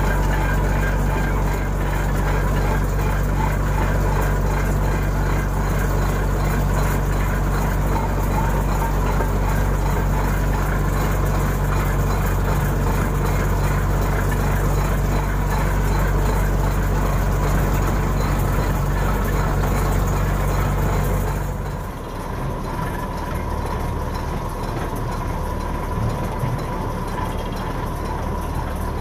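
Shrimp trawler's diesel machinery running with a steady deep hum. About three-quarters of the way through, the low rumble drops away and the sound becomes lighter and a little quieter, the engine hum carrying on.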